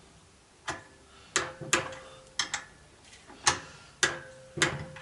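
About eight sharp metallic clicks at uneven spacing, some with a brief ring, from a torque wrench as the connecting rod big-end cap nuts are brought to their first torque stage of about 14 N·m.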